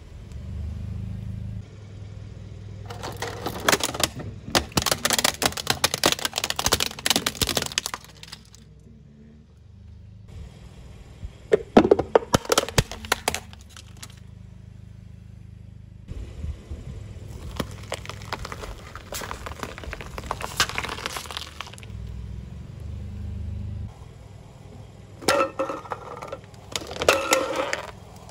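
A car tyre rolling over and crushing brittle plastic containers and packaging, which crack, crunch and snap apart in four separate spells of dense crackling, over the low rumble of the slowly moving car.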